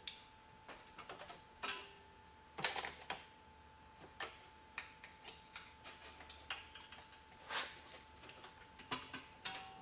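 Irregular metallic clicks and clinks of steel exhaust springs being stretched and hooked onto the spring hooks that join a snowmobile's exhaust pipe to its silencer.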